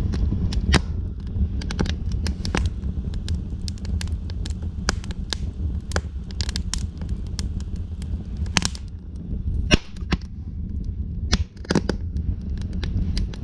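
A fire crackling, with sharp pops at irregular intervals, several a second at times, over a steady low rumble.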